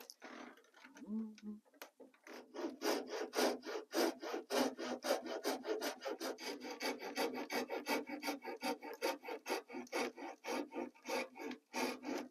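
Coping saw cutting through cork roadbed in quick, even back-and-forth strokes, several a second, starting about two seconds in.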